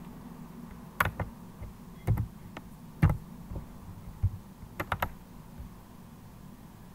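Computer keyboard keys tapped in a dozen or so scattered clicks, from about a second in until a little past five seconds, over a steady low hum.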